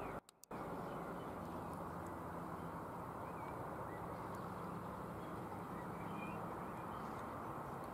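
Steady outdoor background noise with a few faint, short bird chirps scattered through it; the sound drops out for a moment just after the start.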